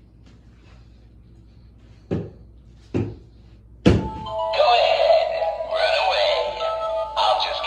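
Three thumps about a second apart, then a battery-operated animatronic clown's speaker starts playing music with a synthetic singing voice.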